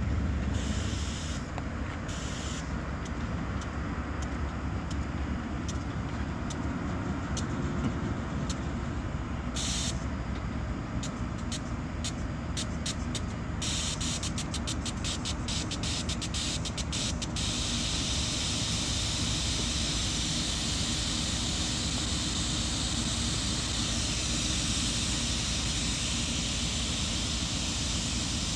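GE B23-7 diesel-electric locomotive's turbocharged V12 engine rumbling as it approaches. Sharp clicks come through the first half, and a steady hiss joins in over the second half.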